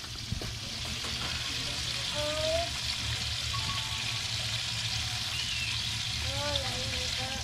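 Small salmonete (goatfish) frying in oil in a wok: a steady sizzle.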